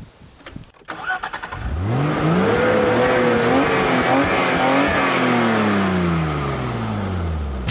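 Riding lawn mower's small engine being started: a brief rattle of cranking, then it catches about two seconds in and revs up. It runs high for a few seconds, then slowly drops in pitch near the end.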